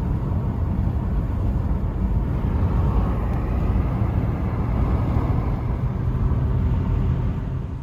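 Steady low rumble of a car driving, heard from inside the cabin: road and engine noise that cuts off suddenly at the end.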